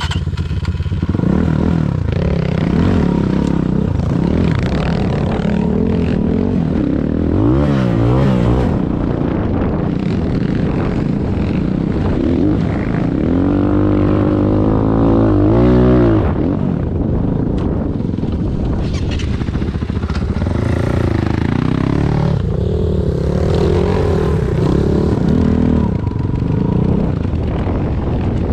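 Enduro motorcycle engine running hard, its revs rising and falling again and again as the throttle is worked. The longest climb in pitch comes about halfway through, then drops off.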